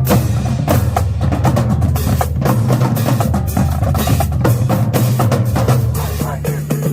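High-school marching drumline playing a fast cadence: snare drums, tenor drums and pitched bass drums striking together in dense, rapid patterns.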